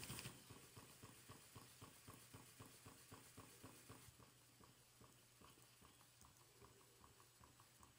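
Twin-cylinder steam engine running with a faint, quick, even beat of several knocks a second. The beat drops in level just after the start and again about halfway through.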